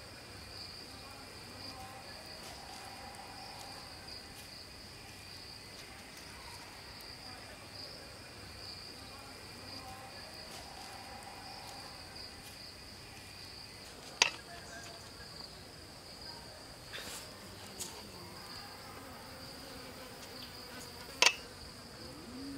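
Insects chirring steadily at a high pitch. Two sharp clicks stand out, about seven seconds apart, the second near the end.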